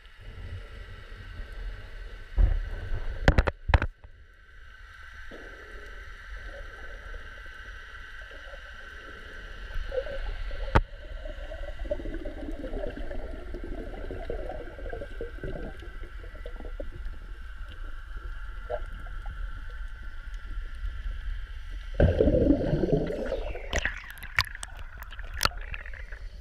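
Underwater sound picked up by a hand-held camera in its waterproof housing: muffled water movement over a steady high hum and low rumble. Sharp knocks come in a cluster about three seconds in and once near eleven seconds, and a louder rush of water with more knocks comes in the last few seconds.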